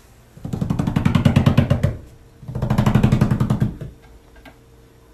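Tabby cat purring loudly in two long bouts, a fast rattling purr broken by a short pause for breath, as it begs for food.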